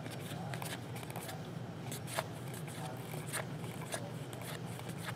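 A stack of trading cards being flipped through one at a time in the hands: light scattered flicks and slides of card on card, with one sharper snap about two seconds in, over a steady low hum.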